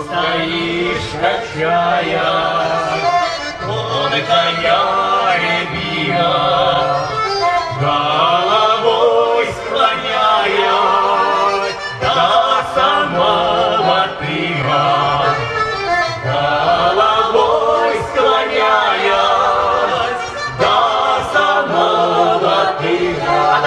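Live Russian folk song: several garmon button accordions play while male and female voices sing into microphones.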